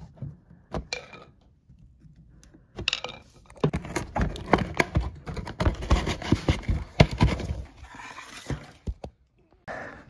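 Knocks, clicks and clatter of hard plastic and metal parts being handled at the base of a dishwasher while it is opened up to reach the drain pump. A few single clicks come first, then a busy run of quick knocks from about three seconds in until near the end.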